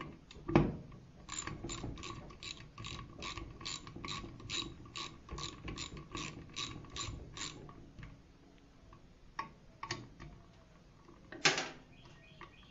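Socket ratchet wrench clicking steadily, about three or four clicks a second for several seconds, as a brake-assembly bolt on a small engine is backed out. A knock just after the start, a few scattered clicks later, and a louder clatter near the end.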